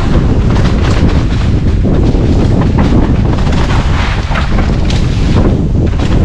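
Heavy wind noise on the microphone with continuous rattling and clattering from a bicycle being ridden over rough ground.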